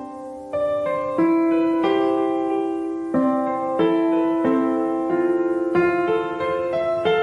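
Background piano music: calm notes and chords struck about every two-thirds of a second and left to ring.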